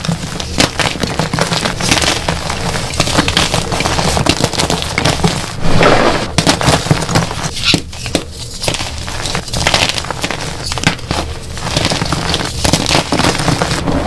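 Hands crushing and crumbling dyed gym chalk blocks: continuous dry crunching and crackling of chalk chunks and powder, with a louder crunch a little before the middle.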